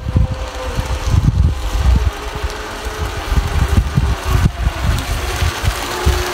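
Small electric motor of a radio-controlled bait boat whining thinly as it runs across the lake, its pitch sinking slightly, under heavy gusty wind buffeting on the microphone.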